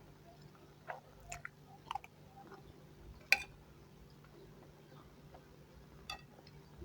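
A person chewing food close to the microphone, with a few short, sharp mouth clicks; the loudest comes about halfway through.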